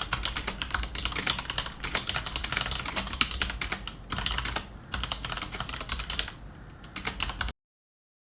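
Fast typing on a computer keyboard: dense clicks in runs with short pauses, cutting off abruptly about seven and a half seconds in.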